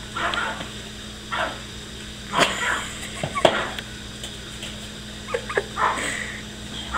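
Chihuahua snarling and giving short, sharp barks and yaps, about half a dozen spaced unevenly: an aggressive warning while it guards a rope toy from another dog.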